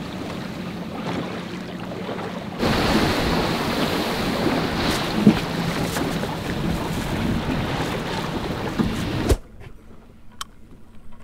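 Small open panga boat underway with its outboard motor running: a steady low hum under wind and water noise, which grows suddenly louder about two and a half seconds in with wind on the microphone. Near the end the sound drops away suddenly to a much quieter background with a few faint clicks.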